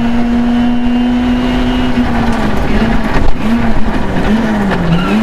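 Rally car's engine heard from inside the cockpit, held at steady high revs for about two seconds, then dipping and rising several times as the car brakes and downshifts for a left hairpin.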